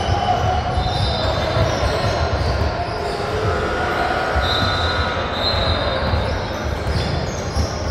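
Basketball gym noise: a steady low rumble with several drawn-out high squeaks, sneaker soles on the hardwood court.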